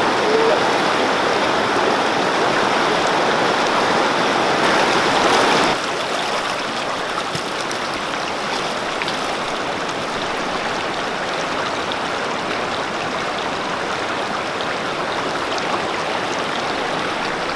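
Rushing water, a steady, even rush. It drops a little in level about six seconds in and then carries on unchanged.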